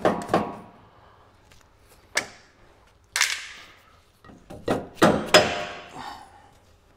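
A mallet knocking the drive shaft's bearing flange against the mower's steel frame, several separate blows with a cluster of three near the end, the louder ones leaving a short metallic ring: tapping the bearing into line with the frame.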